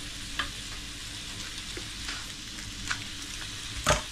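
Chicken and mixed vegetables sizzling steadily in a hot nonstick wok as they fry in oil, with a few sharp clicks and one louder knock near the end.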